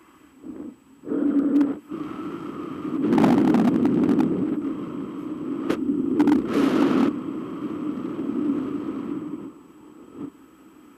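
Wind rushing over a camera microphone mounted on a hang glider in flight, buffeting in irregular gusts. It picks up about a second in, surges loudest twice, around three and again around six seconds in, and drops back near the end.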